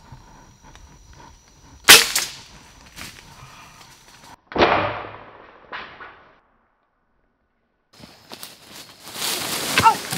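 A homemade bamboo crossbow shot: one sharp snap about two seconds in, followed by two shorter noisy bursts that fade. Rustling through leaves and twigs, with a few clicks, comes near the end.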